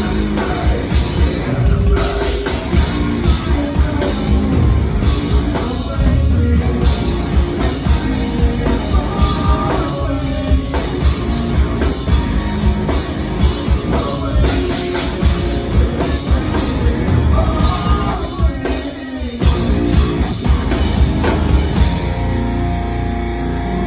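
Rock band playing live through a PA: electric guitars, bass guitar and drum kit with a man singing. Near the end the drums stop and the band lets a final chord ring out.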